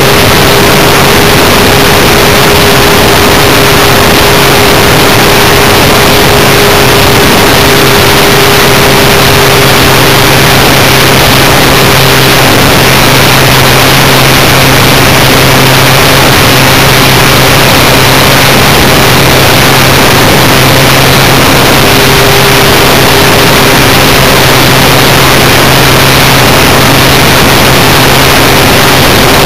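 RC model Cessna Skywagon in flight, heard from a camera mounted on the plane itself: a loud, steady rush of wind and propeller with a steady motor hum underneath.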